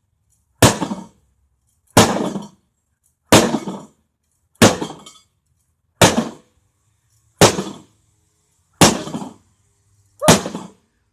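A microwave oven being struck hard again and again, eight blows about a second and a half apart, each a sharp crash of metal and glass with a short rattle after it. The casing is holding up and not yet breaking open.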